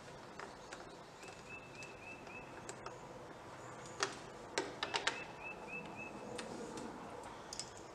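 Small metal nuts being threaded by hand onto the air filter base's studs, a few sharp clicks against the plastic housing about four to five seconds in. A bird chirps in short repeated runs in the background.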